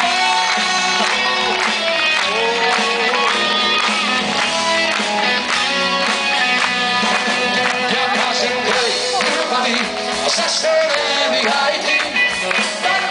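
Live pop-rock band playing: drum kit, electric guitar and keyboard, with a sung vocal line over them.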